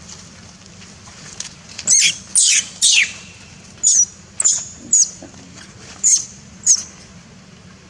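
Baby long-tailed macaque crying out in a string of about eight short, high-pitched squeals, starting about two seconds in.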